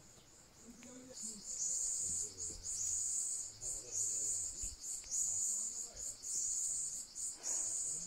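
Insects chirring in high-pitched pulses, starting about a second in, each pulse lasting about a second with short breaks between.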